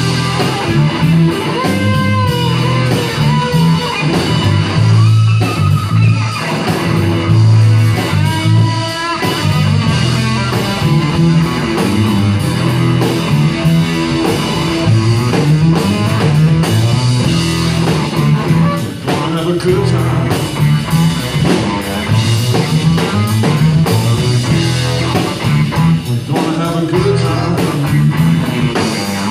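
Live blues-rock band playing: electric guitar leading with bent, wavering notes over electric bass and a drum kit.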